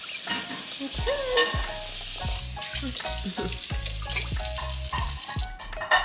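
Tap water running from a kitchen faucet into a humidifier's plastic tank, a steady hiss that stops near the end, with background music.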